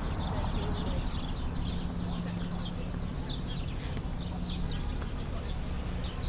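City street ambience: small birds chirping over and over above the steady low hum of traffic, with one engine hum that starts about half a second in and fades out just before five seconds.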